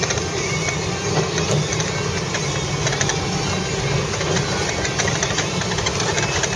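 Car driving slowly over a snow-covered road, heard from inside the cabin: steady engine and road noise with a dense crackle of tyres on packed snow.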